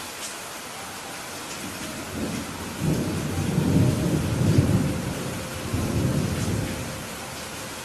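Steady rain falling, with a roll of thunder that builds about two seconds in, rumbles loudest in the middle, swells once more and dies away near the end.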